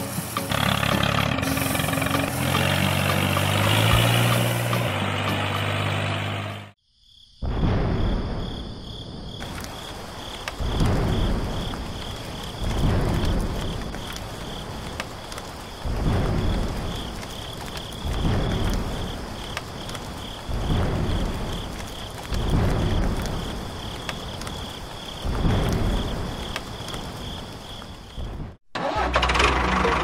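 Background music for the first several seconds, then, after a brief break, a rain and thunderstorm sound effect: a steady rain hiss with rumbles swelling every two seconds or so and a faint steady high tone over it.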